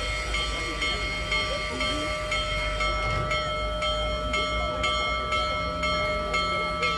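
Union Pacific Big Boy excursion train rolling by, with several steady ringing tones and a regular clatter about two to three times a second. Voices are faint in the background.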